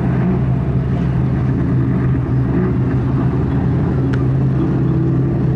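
Several quarter midget race cars' small single-cylinder engines running together, a steady drone at an even, unchanging pace with no revving.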